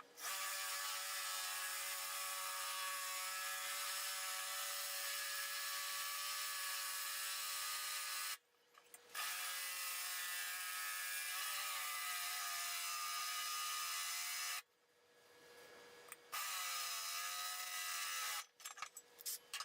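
Electric power tool running steadily with a whine and hiss, its pitch wavering briefly now and then, broken into several stretches by abrupt stops.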